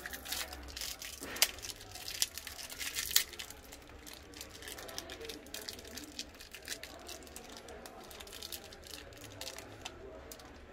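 A metal mounting bracket, small screws and a screwdriver clinking and rattling as they are handled, with a plastic bag of wall plugs crinkling. A few sharp clicks stand out in the first three seconds.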